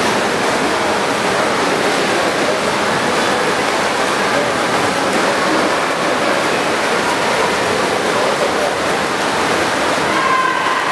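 Steady, echoing din of an indoor swimming pool hall during a freestyle race: many voices shouting and cheering, blended with the splashing of swimmers doing front crawl.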